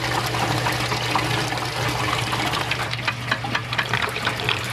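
Water splashing and churning in a model dam's reservoir, over the steady low hum of a small electric water pump; the splashing turns choppier about three seconds in.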